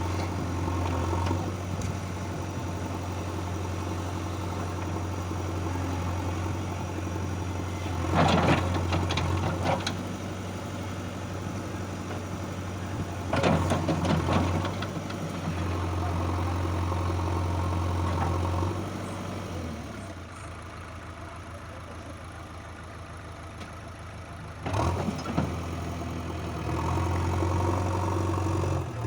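Diesel engines of a backhoe loader and a tractor running at a steady idle, with three loud spells of clanking and clatter while mud is loaded, about 8, 13 and 25 seconds in.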